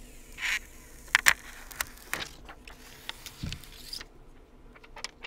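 Plastic screen-protector film being peeled off a smartphone's display: a short hiss, then scattered crackles and sharp clicks, loudest just after a second in. A soft low thump comes about three and a half seconds in.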